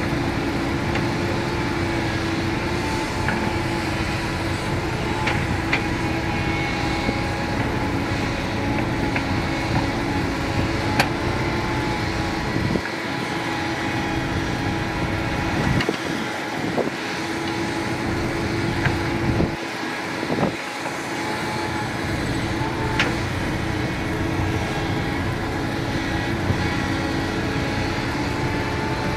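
Doosan crawler excavator's diesel engine running steadily under digging load, with a steady whine over it and a few sharp knocks as the bucket digs and loads dirt into a dump truck.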